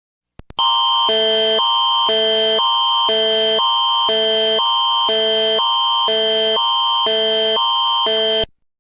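Canadian Alerting Attention Signal (the Alert Ready tone): a loud chord that switches between two sets of tones every half second over a steady high tone, lasting about eight seconds and stopping abruptly. It comes just after two brief clicks and marks the start of an emergency alert broadcast.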